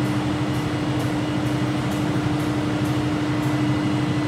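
Generator set driving a Leroy Somer 1,180 kW alternator, running steadily at 1500 rpm on a light load of about 100 kW in parallel with the mains: a loud, even machine hum with a strong single tone, and faint high ticks about twice a second.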